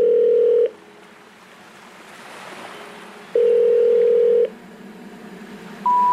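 Telephone call tones, as heard in a phone earpiece. A long low beep ends shortly after the start, and an identical one sounds about three seconds later: the ringing tone of an unanswered call. Near the end a higher beep begins, the first note of the rising three-note intercept signal that comes before a 'number cannot be reached' announcement.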